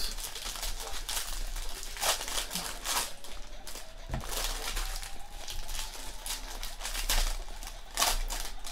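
Foil wrappers of Panini Prizm football card packs crinkling and tearing as they are opened and pulled apart by hand, in a string of irregular sharp crackles.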